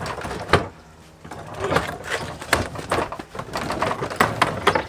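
Knocks, clunks and rattling as an Evolution sliding mitre saw is shoved and handled on its wooden stand, with one sharp knock about half a second in and several more after.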